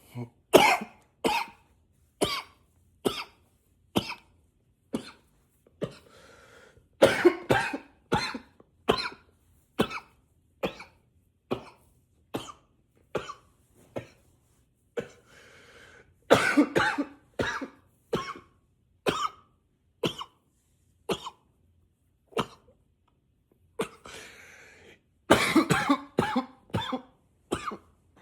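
A man coughing nonstop: short, sharp single coughs about once a second, broken by harder fits of several coughs in a row, each fit just after an audible breath in, about a quarter of the way through, halfway and near the end.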